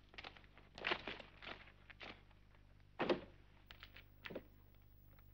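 Footsteps: a handful of uneven steps, with the loudest step about three seconds in.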